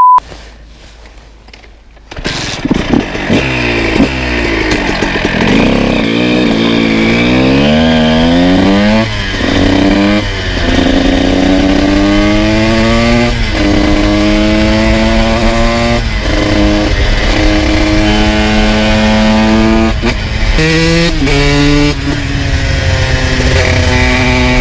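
2002 Honda CR125's two-stroke single-cylinder engine breathing through an FMF full exhaust, under way. About two seconds in it gets much louder, and the pitch climbs and drops back several times before holding steadier, with low wind rumble underneath.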